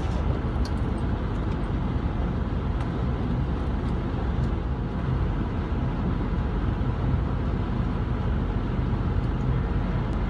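Ford F-350 pickup carrying a truck camper, driving on a dirt and gravel road: steady engine and tyre noise heard from inside the cab.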